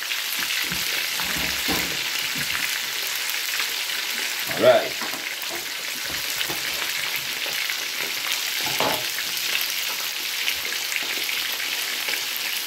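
Whole fish frying in hot oil in a pan: a steady sizzle with fine crackling.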